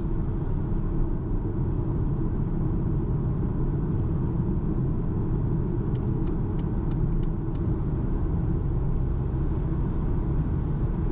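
Steady low road and tyre rumble inside the cabin of a BMW X1 xDrive25e cruising at about 100 km/h on Michelin Pilot Sport 4 summer tyres. Just past the middle there is a short run of light ticks, about three a second.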